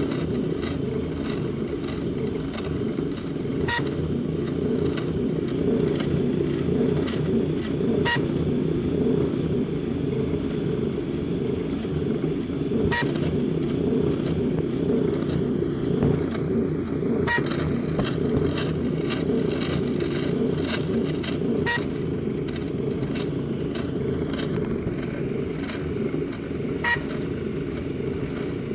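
Wooden-framed 3D printer's stepper motors running as it prints, a steady low whirring with a sharp click every few seconds.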